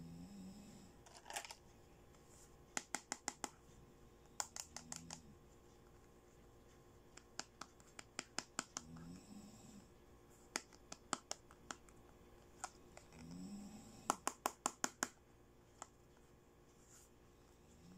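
Fingernails pressing the keys of a small plastic toy mobile phone: quick runs of sharp clicks, four to seven at a time, with short pauses between the runs.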